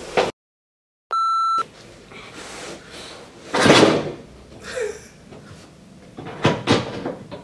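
A brief dead gap, then a single short electronic beep lasting about half a second. It is followed by rustling and creaking as a man shifts his weight on a padded treatment table, with one loud scuffing swell of noise about midway and a few sharp clicks near the end.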